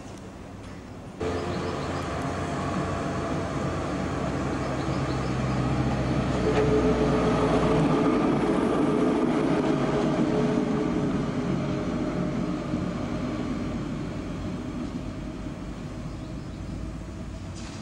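Vintage electric tram passing close by on street track: a steady running noise with a faint whine that begins abruptly about a second in, swells to its loudest about halfway through, then slowly fades as the tram moves away.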